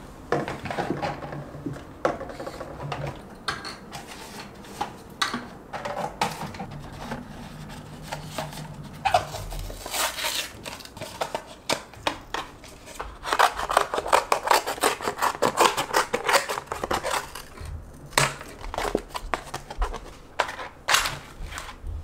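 Paper water cartons being cut open and pulled apart by hand: quick snips and the crinkling and crackling of the stiff, foil-lined carton board, in irregular clicks that grow dense and busy near the middle.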